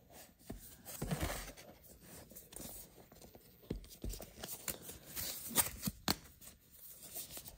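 A cardboard dash-cam box being handled as its printed sleeve is slid off: card rubbing and scraping on card, with a couple of sharp clicks about two-thirds of the way through.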